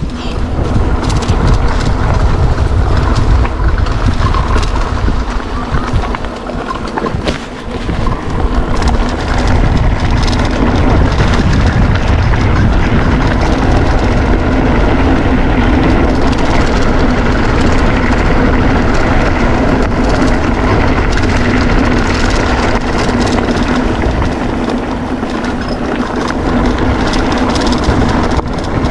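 Mountain bike rolling fast downhill on a gravel road: tyre rumble on the loose surface and wind rushing over the microphone, with a steady hum underneath and occasional knocks from the bike over bumps.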